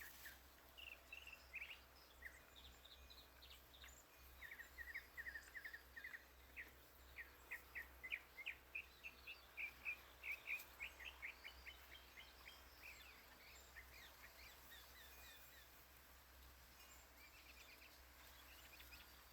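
Faint backyard birdsong: a songbird gives a long run of quick, repeated chirps, a few each second, from a few seconds in until past the middle, with scattered single chirps around it. A faint steady low hum underlies it.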